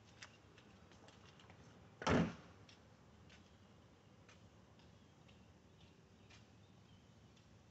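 A single loud knock about two seconds in, against faint scattered clicks.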